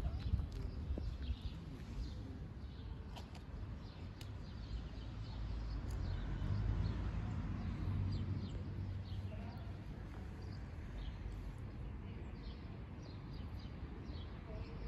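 Small birds chirping in quick short notes over a steady low outdoor rumble, which swells in the middle.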